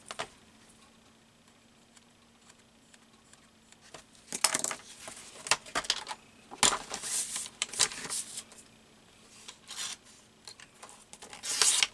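Paper being trimmed and handled. The first few seconds are quiet, then come several short spells of crisp rustling and clicking, the loudest near the end.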